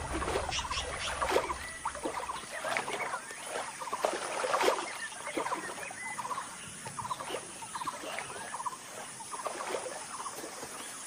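Dholes (Asian wild dogs) calling: many short, overlapping chattering calls and whistles, some of them rapid trills.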